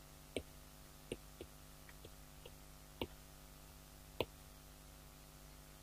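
Faint, irregular clicks and taps of a pen against the writing surface as a word is written out by hand, about seven in the first four seconds, over a low steady hum.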